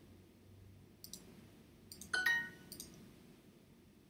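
Computer mouse clicks, then a short two-note chime from the Duolingo lesson in the browser, the tone it plays when an answer is marked correct. A couple more clicks follow.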